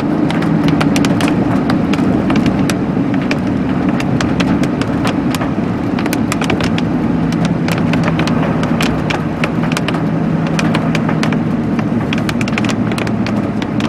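A vehicle's steady engine and road noise as it rolls over a road strewn with hailstones and hail-stripped leaves, with frequent sharp, irregular clicks and cracks of ice throughout.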